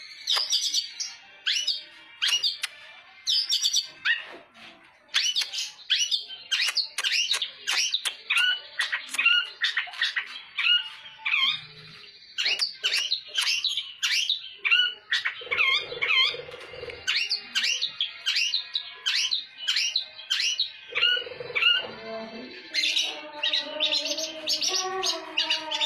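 Caged long-tailed shrike (cendet) singing: a fast run of sharp, high chirps and harsh notes, several a second. Near the end a lower, wavering sound joins in underneath.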